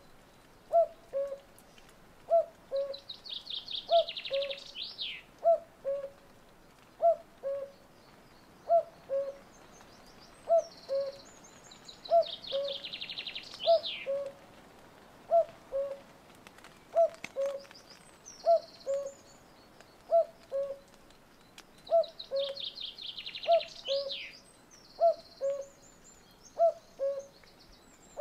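Common cuckoo calling its two-note falling "cuck-oo" over and over, about once every second and a half, close by. A small songbird's fast trill ending in a downward flourish breaks in three times.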